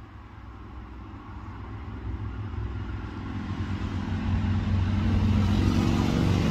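A loud motorcycle approaching, its engine growing steadily louder.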